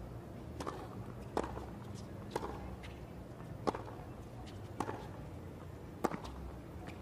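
Tennis ball being hit back and forth with rackets in a rally: about six sharp pops, roughly one a second, starting with the serve.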